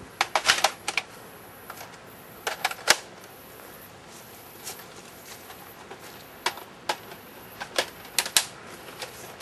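Sharp plastic clicks and clacks of a Nerf blaster being handled, coming irregularly in small clusters of two to four with pauses between.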